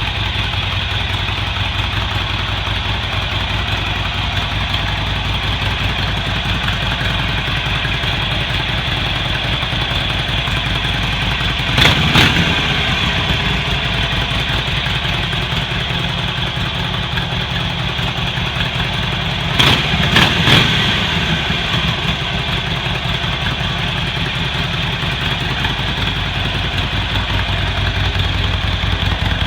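Harley-Davidson Iron 883's air-cooled V-twin idling through its stock exhaust, with a short blip of the throttle about twelve seconds in and a quick cluster of throttle blips around twenty seconds in.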